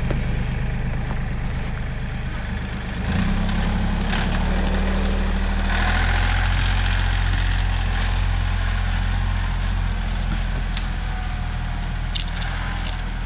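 Bobcat compact tractor's diesel engine running steadily under load, throttling up about three seconds in as it pulls a log, with a brief rushing hiss about halfway through.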